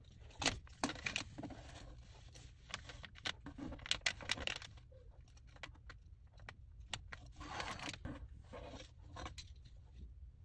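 Clear plastic packaging bag crinkling and rustling in irregular bursts of crackles as a foam squishy toy is handled and taken out of it, over a steady low hum.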